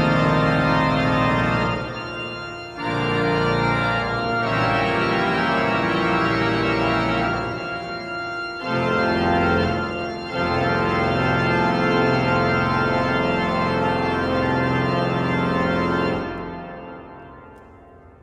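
Church pipe organ playing loud sustained full chords with a deep bass, changing chord several times. The final chord is released about sixteen seconds in and dies away in the church's reverberation.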